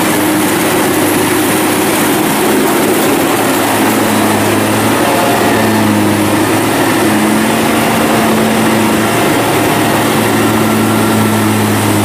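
Zoomlion EH100 rice combine harvester running steadily as it cuts and threshes rice, its engine drone mixed with the clatter of the machinery.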